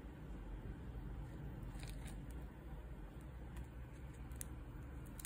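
Faint handling of a smartphone in the hands, with a few light clicks and taps as it is turned over, and a sharper click near the end, over a steady low background hum.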